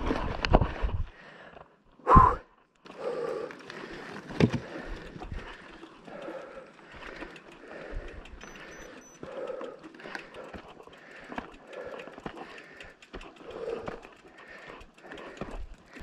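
Mountain bike riding over a rough trail, its frame and parts rattling with irregular knocks from the bumps. A loud, short sound comes about two seconds in, and a sharp knock about four seconds in.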